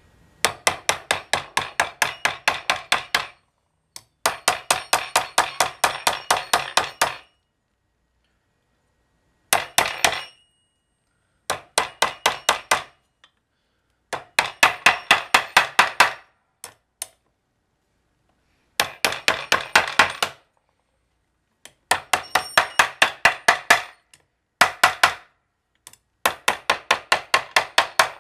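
Small hammer tapping a seal installer and the seal's rim to drive a new rear main crankshaft seal into a Cummins 6BT's aluminium seal housing. The taps come in quick runs of about four a second, several runs with short pauses between, working around the seal to seat it.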